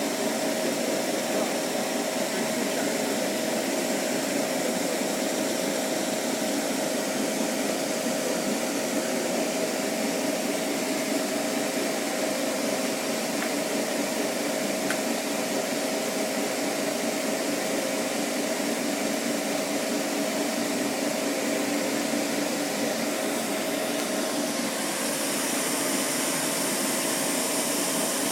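Refrigerant recovery machine running steadily, its compressor and fan drawing refrigerant out of the system into the recovery tank, with a constant hum. About 25 seconds in, a higher hiss joins it.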